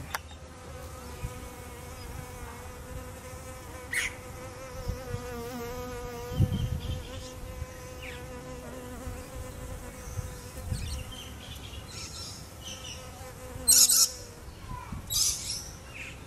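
Blue banded bee buzzing in flight, a steady hum that wavers slightly in pitch as it hovers. Near the end the buzz stops, and two short hissy bursts, the louder of them about two-thirds of the way through, follow.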